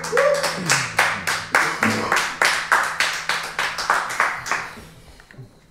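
A few people clapping in applause, separate distinct claps that die away about five seconds in.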